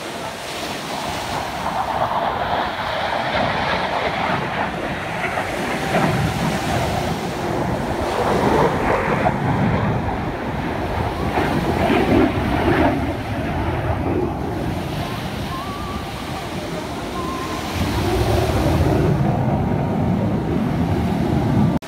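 Jet aircraft engines rumbling from a low noisy hum that swells twice as aircraft pass overhead, mixed with wind buffeting the microphone.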